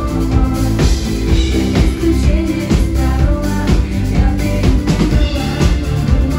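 Live pop song: a woman singing into a microphone over a live band, with a drum kit keeping a steady dance beat.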